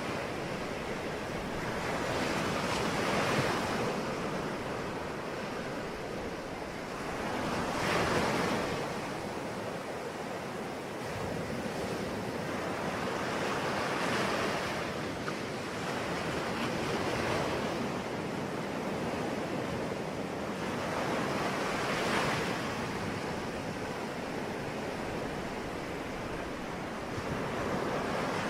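Sea waves breaking and washing up on a shore, one swell after another every few seconds, some louder than others.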